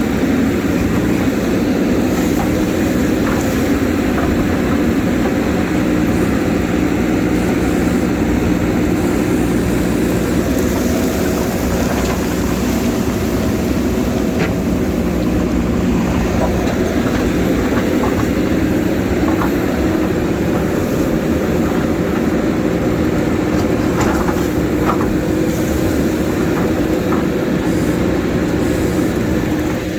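JCB backhoe loader's diesel engine running steadily under load while it digs, with a few sharp knocks about halfway through and again near the three-quarter mark.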